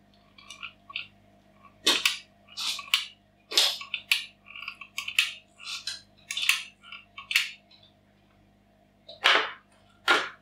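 Cork bark tube being handled and pressed into place, giving about a dozen short, irregular crackling scrapes and crunches, the loudest two near the end.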